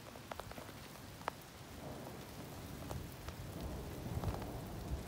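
Rain falling, with drops ticking sharply on a surface close by, and a low thunder rumble that builds from about two seconds in and grows louder toward the end.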